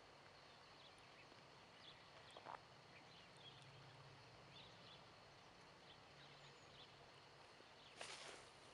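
Near silence: faint outdoor room tone with a low steady hum, a few tiny ticks, and a brief rustle about eight seconds in.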